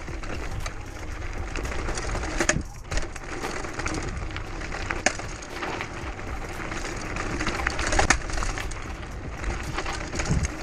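Mountain bike riding over a rocky trail: a continuous rattle of tyres and bike over stones with frequent sharp clicks and knocks, and wind rumble on a small action camera's microphone.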